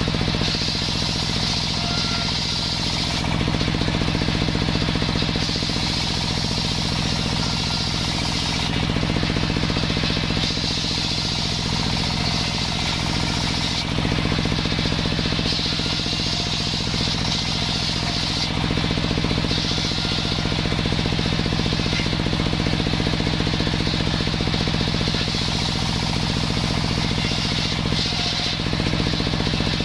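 Large table-mounted circular saw ripping sengon wood boards into battens. Over the steady hum of the saw's drive, the blade's cutting noise comes in with each pass through the wood and drops away between boards, repeated every few seconds.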